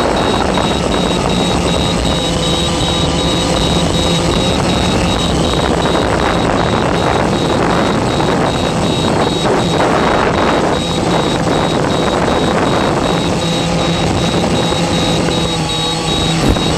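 Octocopter's electric motors and propellers running in flight: a steady hum with several whining tones that drift up and down in pitch as the motors change speed, under a heavy rushing noise.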